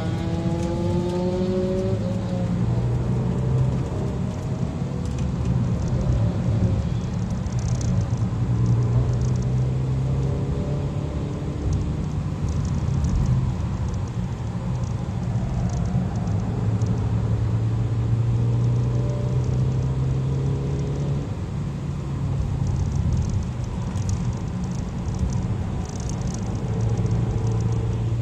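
Kia cee'd GT's turbocharged four-cylinder engine heard from inside the cabin at speed, droning steadily and rising and falling in pitch as the car accelerates and eases off, over tyre and road noise.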